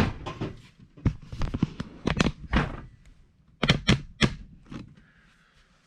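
A washing machine's plastic detergent dispenser drawer being pulled out and handled: a sliding scrape at the start, then a series of knocks and clacks.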